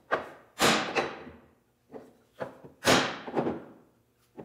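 Wooden mallet striking a scrap wood block held on a freshly glued board panel in pipe clamps, knocking its raised edge down flat against the clamp bars. There are two solid knocks about two seconds apart, with lighter knocks and clatters between and after them.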